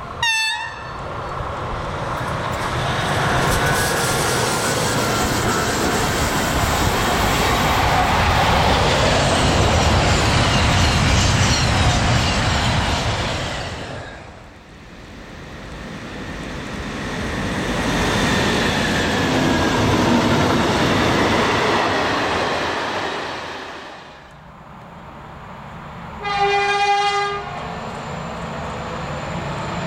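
Trains passing on the line: a short falling toot on a locomotive horn. Then two long passes of steady wheel and rail noise, each building and fading. Near the end a locomotive horn sounds once for about a second as a diesel locomotive approaches, its noise rising.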